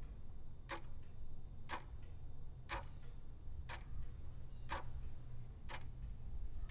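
Clock-tick sound effect of a quiz countdown timer: six sharp ticks, one each second, over a low steady hum.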